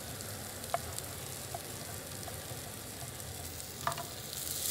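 Onion and garlic sizzling gently in oil in a frying pan, the sizzle growing louder near the end. A few light knife taps on a cutting board come through it as baby squid is sliced into rings.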